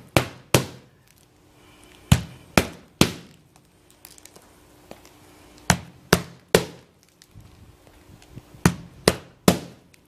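Hammer driving nails into asphalt roofing shingles: about a dozen sharp blows in quick groups of two or three, each group about half a second between strikes, with short pauses between groups.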